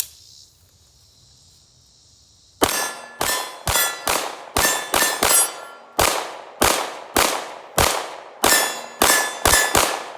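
Palmetto State Armory Dagger 9mm pistol fired rapidly with 115-grain full metal jacket ammunition, a string of shots about two a second starting a couple of seconds in. Many shots are followed by a steel target ringing with a clear tone.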